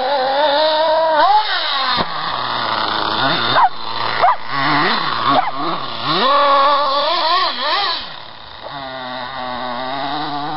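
Kyosho MP7.5 Sport RC buggy's small two-stroke nitro engine revving up and down in quick bursts as the car is driven. About eight seconds in it settles to a steadier, lower drone before climbing again.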